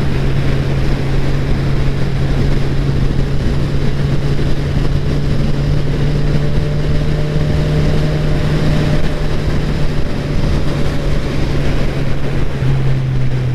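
Motorcycle engine running steadily at cruising speed, with wind rushing over the microphone. Near the end the engine note drops a little as the bike slows.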